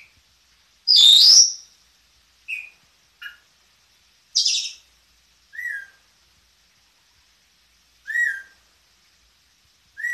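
Senegal parrot giving a series of separate high-pitched calls with short pauses between them, its daily wake-up calling. The loudest, longest calls come about a second in and about four and a half seconds in. The later calls are shorter, lower whistle-like notes.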